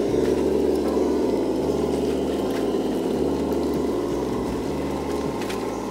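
Tamiya Globe Liner radio-controlled truck driving steadily, its running sound a continuous hum that eases off slightly in the second half.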